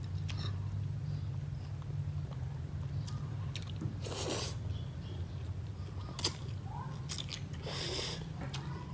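Baby macaque chewing and biting into small round fruit, with small clicks of eating and two short, louder noisy bursts about four and eight seconds in, over a steady low hum.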